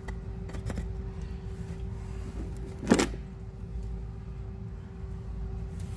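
A single sharp knock about three seconds in, over a steady low rumble and a faint steady hum, with a few faint clicks.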